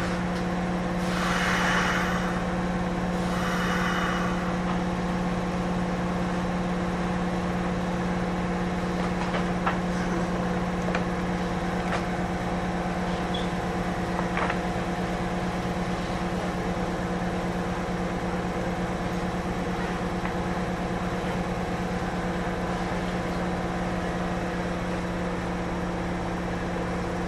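Kintetsu 8600-series electric train standing still with its doors open before departure: a steady electrical hum from its equipment, holding one pitch throughout. A few short hisses of air in the first four seconds, with a couple of faint clicks later.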